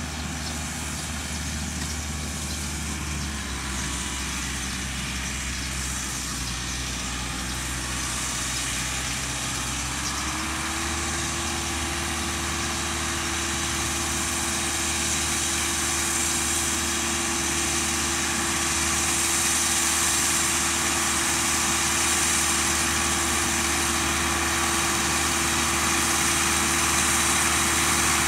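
Diesel farm tractor engine running steadily as it pulls a small round baler, getting gradually louder as it comes closer; a steady higher hum sets in about ten seconds in.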